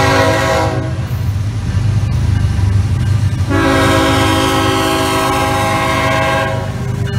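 CSX freight locomotive's multi-tone air horn blowing for a grade crossing: a blast that cuts off about a second in, then a long blast of about three seconds starting about three and a half seconds in. Under it runs the steady low rumble of the approaching diesel locomotives and train.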